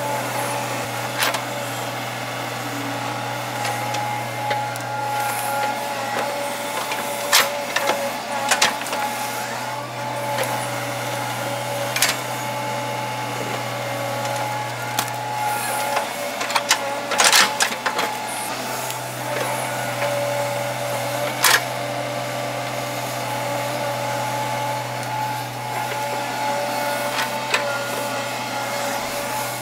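Doosan wheeled excavator running steadily as it digs, a constant engine hum with a higher steady whine over it, broken by several sharp clunks of the bucket working the soil.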